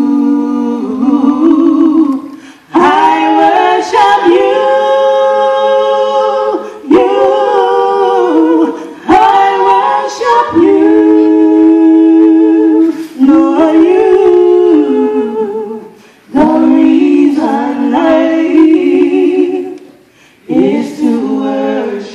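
Women singing a gospel song a cappella into one microphone, with no instruments. The notes are long and held, some with vibrato, in phrases that break off every few seconds.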